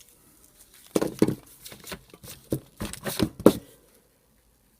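Gearbox housing of an AEG BH25 rotary hammer being popped open by hand: a string of irregular knocks, clicks and rattles of the housing parts, stopping about a second before the end.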